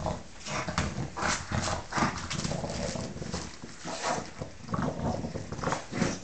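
Bulldog chewing and wrestling with a soft toy: quick, irregular bursts of noisy breathing and mouth sounds, with knocks and rustles of bedding.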